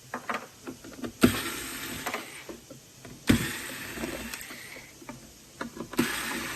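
Plastic parts of a robot-vacuum base station being handled and taken apart: light clicks, then three sharp knocks about a second and a half to three seconds apart, each followed by a short scrape.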